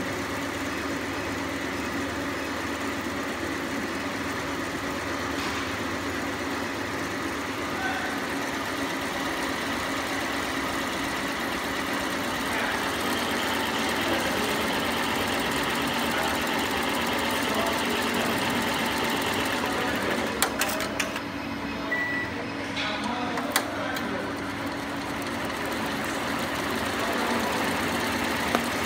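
FUWEI FW1502 two-head cap embroidery machine running steadily as it stitches. A few sharp clicks and a brief high beep come about two-thirds of the way through.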